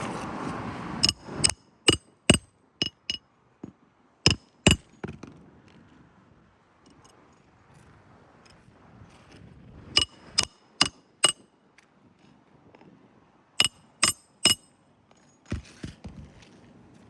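Hammer driving nails on a roof repair: sharp, ringing metallic blows in short runs of three to seven, about two to three a second, with pauses between the runs.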